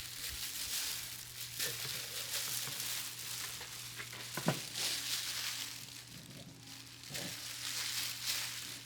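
Gloved hands handling a raw whole duck: plastic glove rustling and crinkling in waves, with a short tap about halfway through, over a steady low hum.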